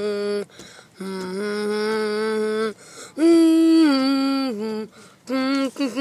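A voice humming a slow tune in long held notes that step up and down in pitch, with short breaks between phrases. The loudest and highest note comes about three seconds in, and the notes get quicker near the end.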